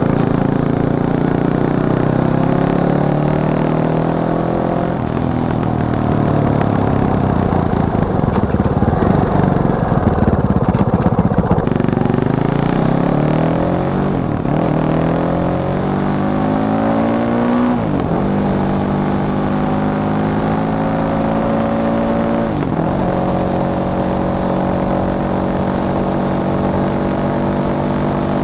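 Fantic Caballero 500's single-cylinder four-stroke engine running under way, its pitch climbing with the throttle and dropping sharply at several gear changes, then holding a steadier note in the second half.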